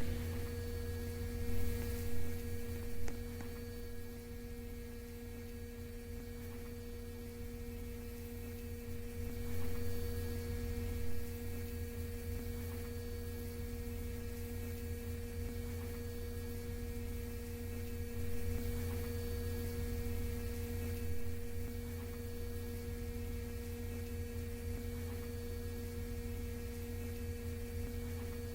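Steady electrical hum inside a New York City subway car: two pure tones, one an octave above the other, held unchanged over a low rumble, with a few brief knocks in the first three seconds and again around ten seconds in.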